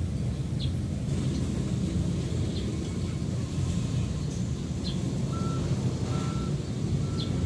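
Steady low rumble of a vehicle running. About five seconds in, a reversing alarm starts beeping evenly, a little more than once a second. A few brief high chirps sound now and then.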